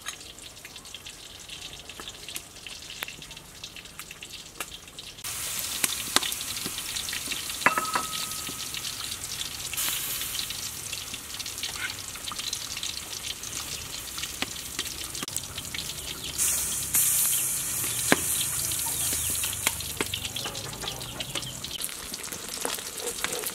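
Cooking in metal pots: a ladle stirring and clinking in a pot of fish soup with pickled greens, then whole red-tail fish frying in hot oil with a steady sizzle. The hiss steps up suddenly about five seconds in and again past the midpoint.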